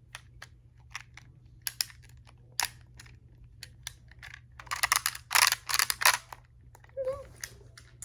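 Sharp clicks and clatter of small plastic fidget toys being handled, with a dense flurry of rattling about five seconds in.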